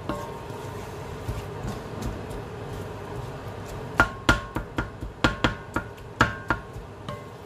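Wooden-handled spatula stirring ground meat in a nonstick wok, knocking against the pan with a quick run of about a dozen sharp clacks that ring briefly, mostly between four and seven seconds in, over a faint steady frying hiss.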